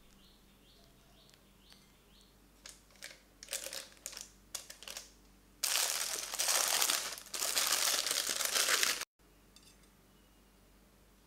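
Plastic piping bag crinkling as hands handle it and fold it over a jug, loud for about three and a half seconds after a few shorter rustles, then cutting off suddenly.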